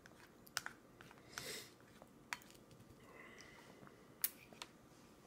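A toddler eating in a high chair: a few faint, sharp clicks and taps from the spoon and her mouth over quiet room tone, the loudest about four seconds in.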